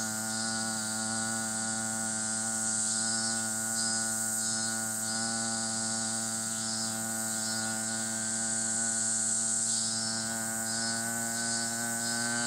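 A low hum held steadily on one pitch, with insects shrilling above it in repeated pulses.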